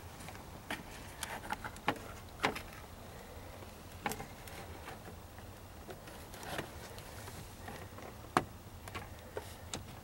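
Plastic steering-column collar of a 1981 Ford F-150 being fitted back onto the column by hand: scattered light clicks and knocks of hard plastic against the column parts, the sharpest about eight seconds in.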